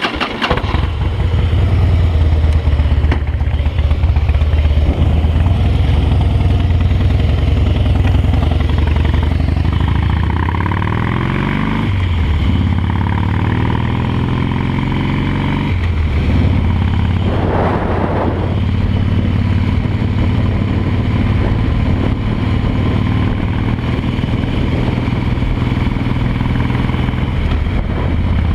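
Harley-Davidson V-twin motorcycle engine catching and running, then climbing in pitch twice as the bike pulls away through the gears before settling into a steady cruise. A brief whoosh comes about eighteen seconds in.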